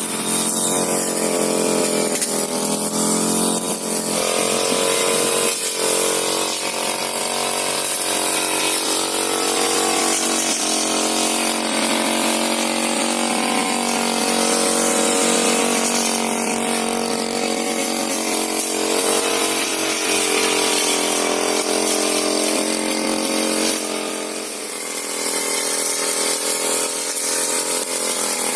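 Petrol brush cutter running at working speed while cutting weeds, its engine pitch rising and falling with the load and easing off briefly near the end.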